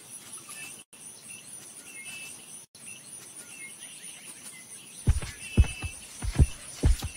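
Faint nature ambience, a soft hiss with a few small chirps. About five seconds in, heavy low thuds begin in quick, irregular succession: the footfalls of approaching mammoths.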